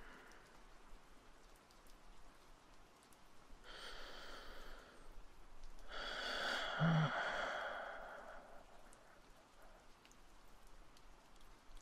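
A man breathing out twice, slow and audible: a breath about four seconds in, then a longer sigh with a brief low voiced hum near its peak. Faint steady rain runs underneath.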